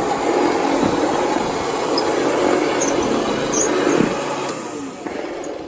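Vintage Hoover Model 28 upright vacuum cleaner running steadily on a rug, then switched off and winding down over the last second or so. The owner says the machine really needs oiling.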